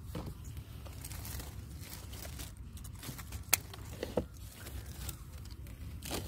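Xạ đen plant stems being cut for harvest: a few sharp snips, the loudest about three and a half seconds in, amid rustling leaves and low handling rumble.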